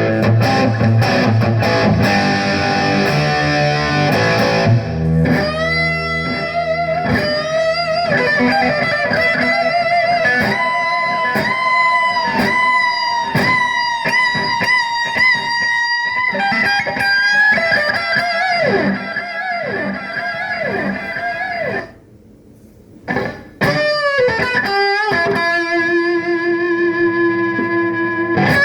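Electric guitar played through a Harley Benton DNAFX AmP20 digital modelling amp, heard through the amp's speaker on a phone's microphone. Chords for the first few seconds, then single-note lead lines with vibrato and bends, and a brief break about 22 seconds in.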